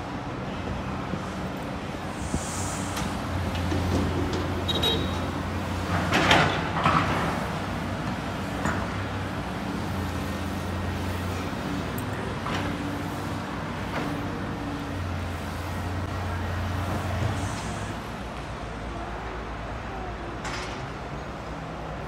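Diesel engines of hydraulic excavators running steadily. The low engine note swells three times as the machines work under load, with a loud clatter about six seconds in.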